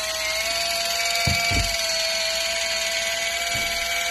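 Kitchen Mama battery-powered electric can opener running as it drives itself around the rim of a can, a steady motor whine with an even pitch. A few soft low bumps sound about a second and a half in and again near the end.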